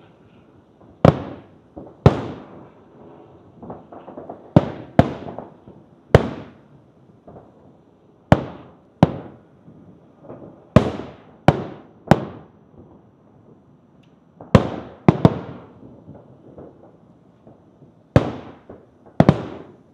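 Aerial firework shells bursting in the sky: about fourteen sharp booms, several coming in quick pairs, each dying away in a rolling echo.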